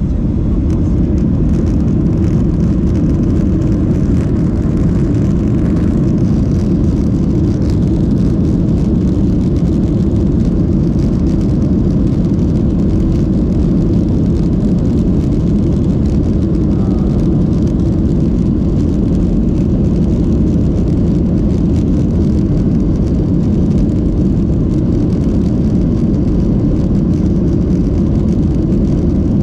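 Steady low rumble inside an airliner cabin, the jet engines running at taxi power as the plane rolls along the taxiway.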